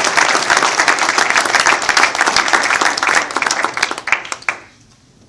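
Audience applauding after a speech, the clapping thinning out and stopping about four and a half seconds in.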